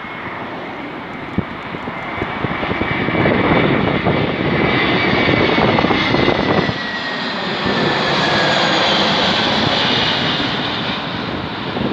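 Airbus A321 jet airliner on landing approach with gear down, passing low: a steady rush of engine noise that swells as it comes near, with a high engine whine that slowly falls in pitch as it goes by.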